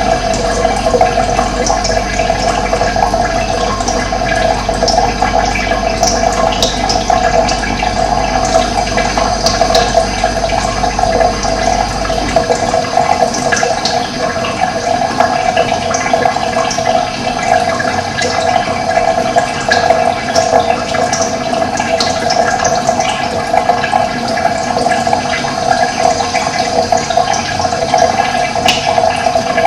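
Running water rushing steadily, the continuous flow of a stream or waterfall. A low hum underneath stops about twelve seconds in.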